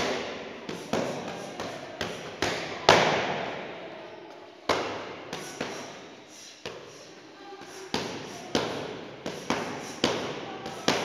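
Boxing gloves smacking into focus mitts in quick punch combinations, the hits coming singly or two or three close together, each echoing off the walls of a large gym hall.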